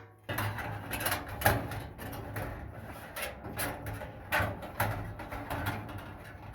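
Handling noises from a new Samsung dryer heating element being fitted into its housing: repeated clicks, knocks and light scraping.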